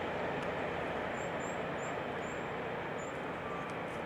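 Steady, even rumble of a train running out of sight, slowly fading, with a bird giving short, high chirps every half second or so.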